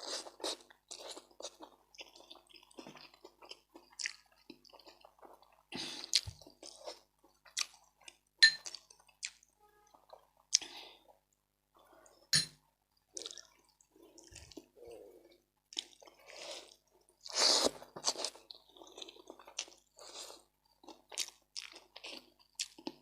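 Close-miked eating of rice with fish head soup: irregular chewing, with small wet clicks and a few louder sharp mouth sounds.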